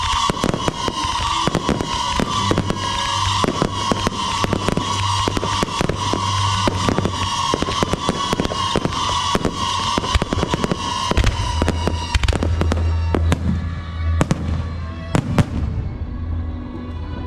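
A fireworks and firecracker barrage: a dense, rapid series of sharp bangs that thins out near the end. For the first twelve seconds a steady high whistle-like tone runs under the bangs.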